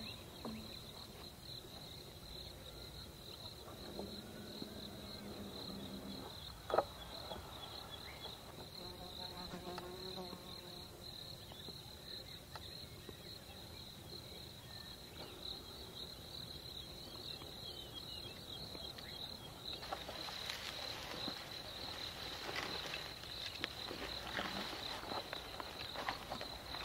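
Insects trilling steadily at one high pitch, with a single sharp click about seven seconds in. From about two-thirds of the way through, rustling of grass and brush joins the trill.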